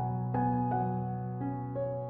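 Background piano music: a melody of single notes changing every half second or so over held low bass notes.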